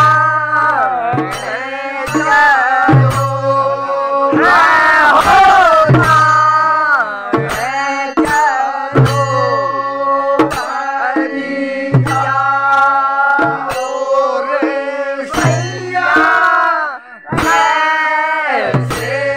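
A group of men singing a hill-country Holi folk song, with deep drum strokes and sharp cymbal clashes keeping the beat.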